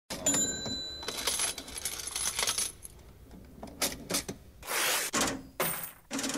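Coins dropping and clinking, a run of metallic jingles with short bright ringing tones in the first few seconds, then several separate clattering spills.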